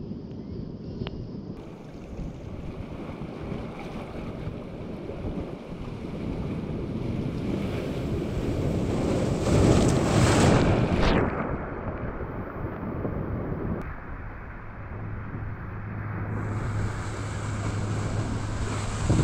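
Sea waves surging over a rocky limestone shore and into rock pools, swelling to a loud splash about halfway through, with wind buffeting the microphone.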